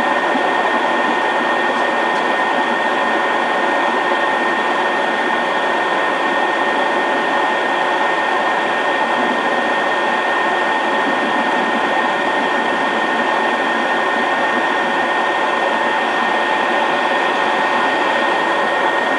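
Eclipse 500 very light jet's twin Pratt & Whitney PW610F turbofans running steadily as the jet rolls out and taxis, a constant rushing noise with a thin, steady high whine.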